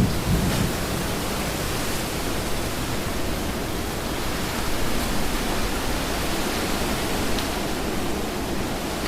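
Steady heavy rain falling, an even hiss with a brief low thump right at the start.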